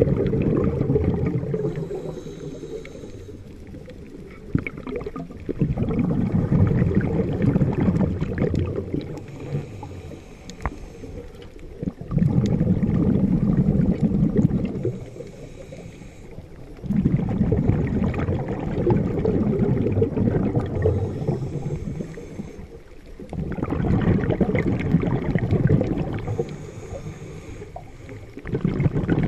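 A scuba diver breathing through a regulator underwater: a loud low bubbling of exhaled air every five to six seconds, about five breaths in all, alternating with a quieter, higher hiss as each breath is drawn in through the regulator.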